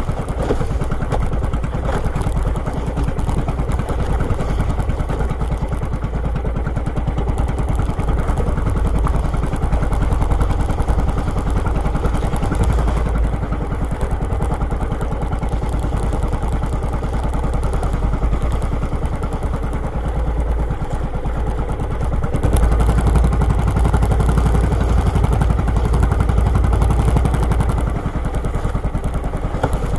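Small engine of a motorised outrigger fishing boat running steadily while the boat is under way, with a fast, even firing rhythm.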